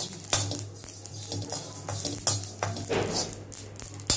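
Metal slotted spatula stirring and scraping a dry mix of whole spices and seeds around a nonstick wok, in repeated irregular strokes. The seeds are being dry-roasted until dark, with a steady low hum underneath.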